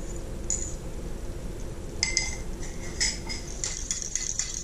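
A ceramic mug clinks and knocks against a stainless steel pan several times as coconut milk is poured out of it: once about half a second in, again at two and three seconds, and in a quick run near the end. A steady low background sound runs underneath.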